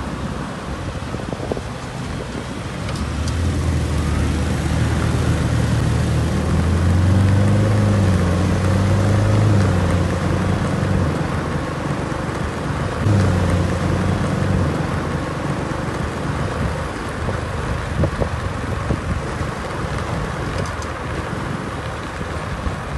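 Ferrari F8 Spider's twin-turbo V8 running hard under a steady rush of wind and road noise. The engine note builds about three seconds in, is loudest midway, then fades away after about fifteen seconds, leaving only the rush of wind and tyres.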